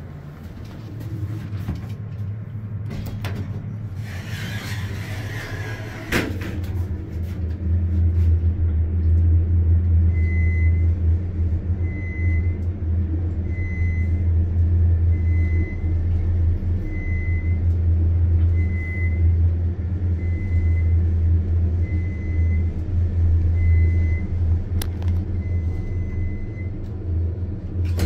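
Vintage Otis elevator car travelling upward. A rustle ends in a sharp clunk about six seconds in, and then a loud, steady low hum of the moving car sets in. Over the hum, a short high beep repeats about every one and a half seconds.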